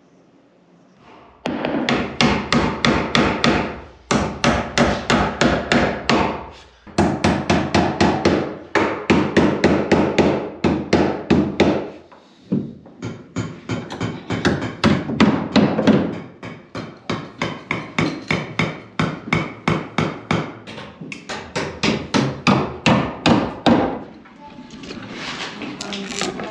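A hammer striking on wood framing in quick runs of about five blows a second, with short pauses between runs.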